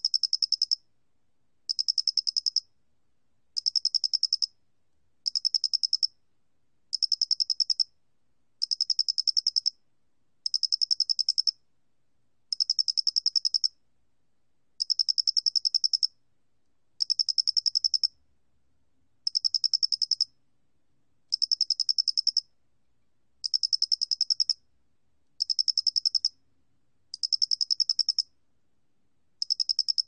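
Male Loxoblemmus doenitzi (모대가리귀뚜라미) cricket singing at 29 °C: a regular series of high-pitched trills, each about a second long, with a quick fine pulsing inside, repeated about every two seconds.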